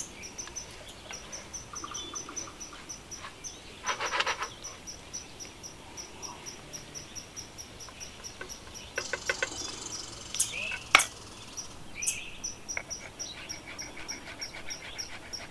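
Steady high-pitched chirping, about four chirps a second, like an insect calling. Over it come a louder scrape about four seconds in and a run of clicks and a sharp clack later on, from a spatula turning crab pieces in a wok.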